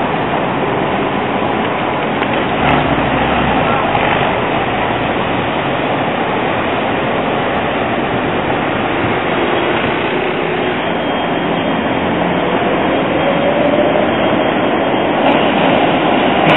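Steady city street traffic with an electric tram running over the rails among passing cars. A faint thin high tone joins in for a few seconds past the middle.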